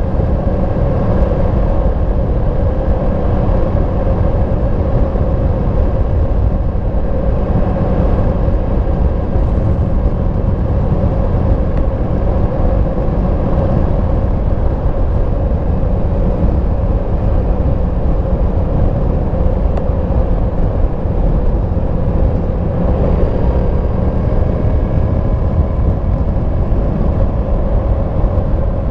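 2022 Yamaha MT-10 SP's crossplane inline-four engine on its stock exhaust, running at a steady cruise while being ridden, with heavy wind and road noise. The engine note eases slightly about three-quarters of the way through.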